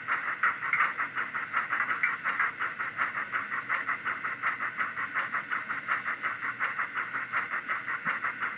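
DCC sound decoder in a Bachmann GWR 94XX pannier tank model, playing a steam locomotive's chuffing through its small onboard speaker: rapid, even exhaust beats with hiss, and a faint regular tick beneath them.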